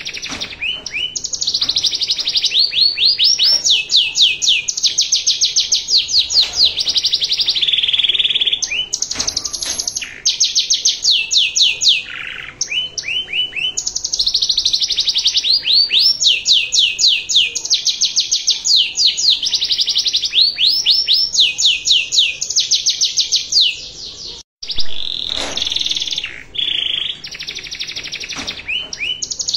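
Domestic canary singing a long, fast song of rolling trills and rapid repeated chirps, almost without pause. There is a brief gap about four-fifths of the way through.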